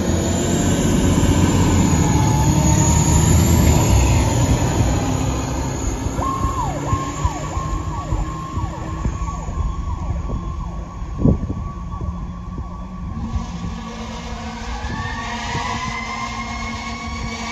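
Pierce Arrow XT aerial fire truck pulling away, its diesel engine rumbling loudly. Then its siren sounds in quick repeated falling sweeps as the truck draws away, with one brief loud blast about eleven seconds in. Near the end a siren winds up, rising in pitch.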